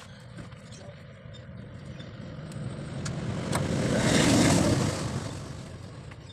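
A road vehicle passing by: its sound builds, peaks about four seconds in, and fades away, over a steady low rumble.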